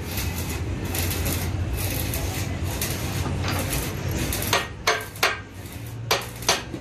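Several sharp metallic clinks in the second half, about five in two seconds, as a steel bushing is knocked against the steel parts of a hydraulic breaker hammer. Before them there is a steady hum and hiss.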